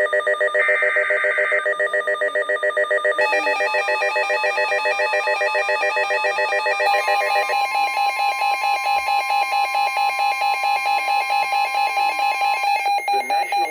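Weather-radio emergency alert tones for a severe thunderstorm warning. A short screech of SAME header data in the first two seconds, then a loud electronic alarm that pulses about five times a second. Its pitch pattern changes twice, and most of it cuts off about a second before the end.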